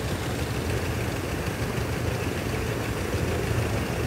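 Prawn-pond paddlewheel aerators running, a steady low machine hum with a faint wash of churned water and air above it.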